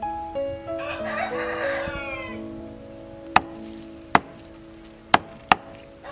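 A rooster crows once about a second in, then a knife chops four times on a cutting board, sharp separate strikes in the second half.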